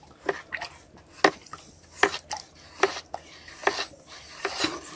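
A wooden stick stirring water in a plastic bucket, with a series of short knocks and sloshes about once a second, as a spray concentrate is mixed into the water.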